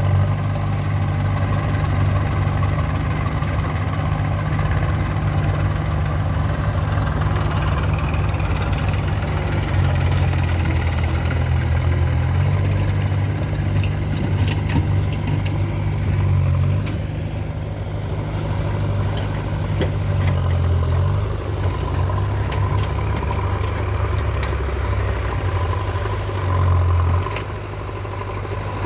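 An engine idling steadily, a low, even hum with occasional faint clicks.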